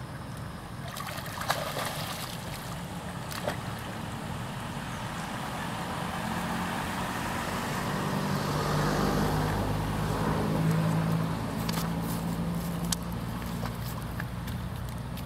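A motor vehicle passing: a low engine hum builds to a peak about ten seconds in, then fades. A few sharp taps sound over the outdoor background.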